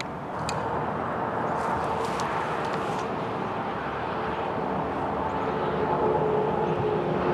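Steady outdoor background noise with a distant engine hum that holds a steady pitch and grows a little louder in the second half.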